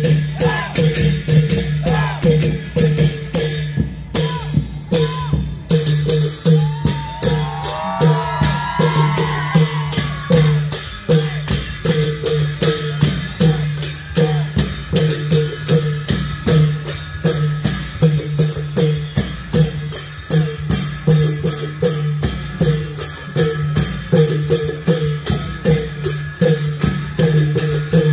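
Thai klong yao long-drum ensemble playing: the long drums, with cymbals, beat a steady, quick rhythm of sharp strokes over a steady low tone.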